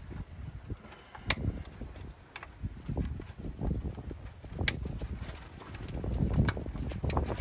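Hands working spark plug wires and a plastic wire separator in an engine bay: rubbing and handling noise with about five sharp plastic clicks, the loudest about a second in and again just before five seconds.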